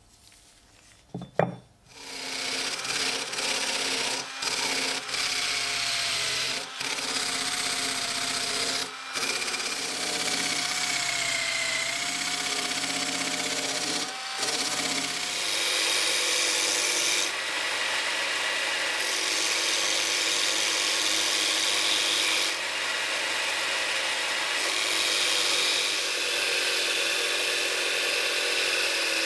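Einhell bench grinder running with the steel edge of a pickaxe blade pressed against its wheel, grinding it sharp. A short sharp knock comes about a second in. The grinding starts just after it, breaks off briefly a few times, and grows steadier past the halfway point.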